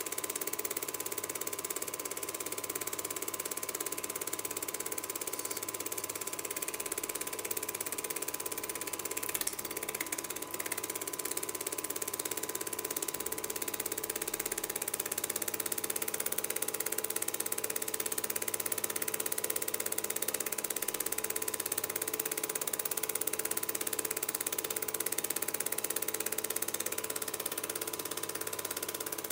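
Home-movie film projector running, its mechanism giving a steady clatter and whirr with a constant whine.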